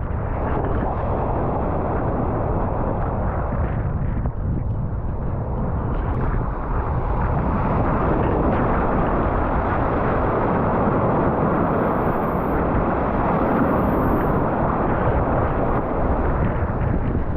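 Strong wind buffeting the action camera's microphone, mixed with the rush of breaking surf around the kayak: a loud, steady rumble of noise.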